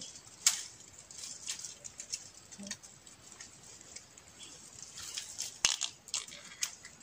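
Dry bamboo stems, twigs and leaf litter crackling and snapping while being handled: a scatter of short sharp cracks, the loudest about half a second in and again near six seconds.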